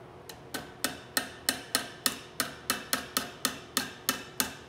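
Small hammer tapping a thin pin through a rifle's wooden forend to hold the barrel underlug, a steady run of light, ringing taps about three a second.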